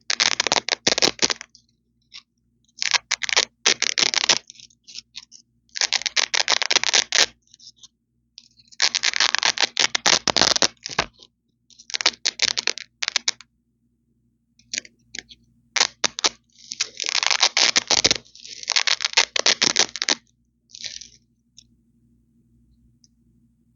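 Hook-and-loop (Velcro) strips being ripped apart close to the microphone. It is a crunchy, crackly tearing sound, repeated in about nine pulls of roughly one to two seconds each, with short pauses between them. The last few pulls are shorter.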